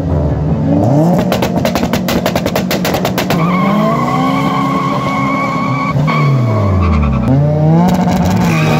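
A Honda Civic hatchback and a Nissan 350Z's V6 revving against each other at a drag-race start line, their engine notes climbing and dropping over and over. A burst of rapid popping comes about a second in.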